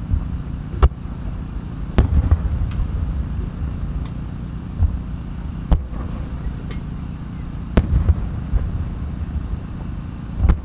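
Large aerial firework shells launching and bursting: a series of sharp booms, about five loud ones a second or more apart with smaller ones between, over a steady low rumble.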